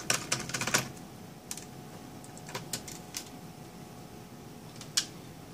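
Small metallic clicks and ticks of a screwdriver working the two screws that hold a laptop's cooling fan: a quick run of clicks in the first second, then a few scattered single ticks, the sharpest one near the end.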